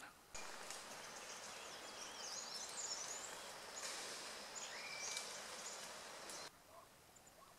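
Small birds chirping and whistling over a steady outdoor hiss, which starts abruptly just after the beginning and cuts off suddenly about a second before the end.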